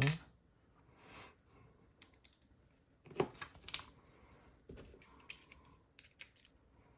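Faint, scattered small clicks and taps of a Mul-T-Lock Garrison padlock and its metal parts being handled after it has been picked open.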